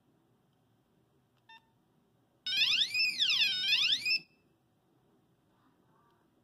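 Nokia 5110 mobile phone's built-in speaker: a short beep, then about a second later a loud electronic tone sliding smoothly up and down like a siren, about one and a half swoops, stopping after under two seconds.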